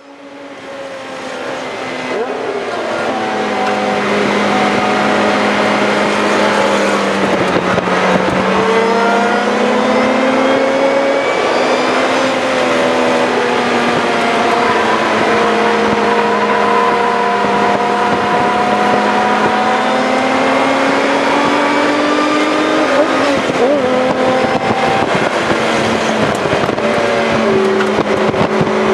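2007 Lotus Exige S's supercharged four-cylinder engine under hard driving on a race track, heard from inside the cabin, its pitch rising and falling repeatedly. The sound fades in over the first few seconds.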